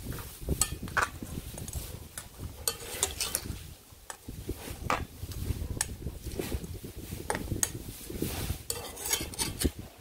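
Large metal spoon stirring curry in a metal pot, knocking and scraping against the pot's sides and bottom in irregular clinks.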